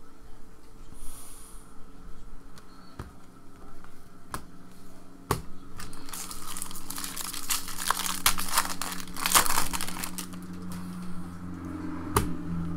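Foil wrapper of a trading-card pack being torn open and crinkled, with a dense crackle of crinkling for about four seconds midway. A few sharp clicks come before it.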